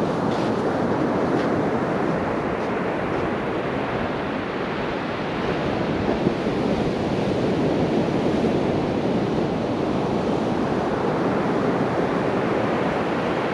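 Sea surf washing steadily onto the beach, with wind buffeting the microphone.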